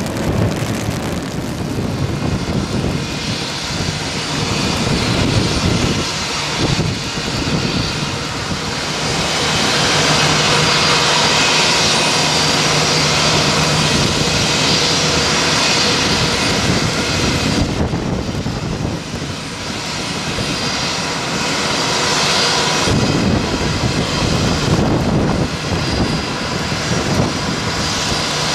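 Jet aircraft running on an airport apron: a steady rushing noise with a whine through it, growing louder for several seconds and easing off twice later on.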